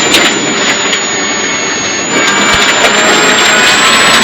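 Rally car's engine running hard with loud road noise, heard from inside the cabin; it gets louder about two seconds in.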